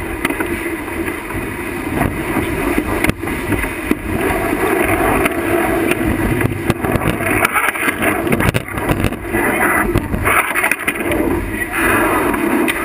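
Wind buffeting the microphone and water rushing past the hull of a sailing yacht driving through rough seas, with several surges of hissing spray sweeping over the deck.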